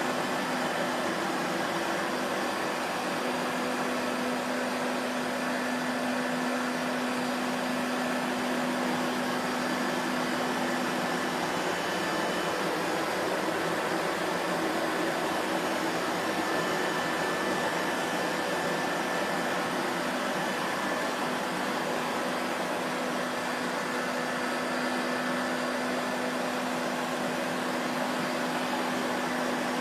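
Vacuum cleaner running steadily: an even whooshing whir of motor and airflow. A faint hum within it fades out about a third of the way through and comes back near the end.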